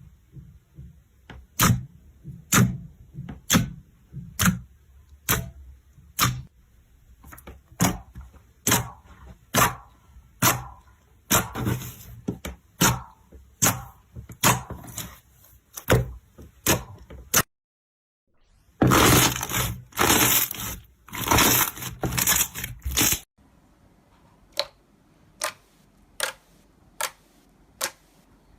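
Sharp, crisp clicking pops, about one or two a second. Then a few seconds of louder, dense crunchy crackling that stops abruptly, followed by fainter, spaced clicks.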